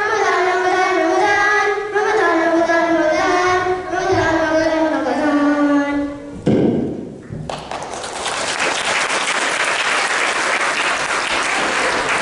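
A group of children singing together, the song ending on a long falling note about six seconds in; after a short low sound, an audience applauding.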